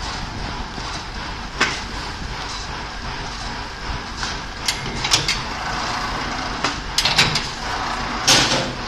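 Automatic spiral coil binding machine running: a steady mechanical hum broken by a series of sharp clicks and knocks from its mechanism, and a short hiss near the end.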